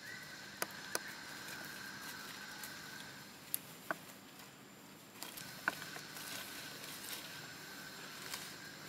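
Outdoor forest ambience: a steady high insect drone that drops out for a couple of seconds around the middle, with scattered sharp clicks and crackles from dry leaves and twigs.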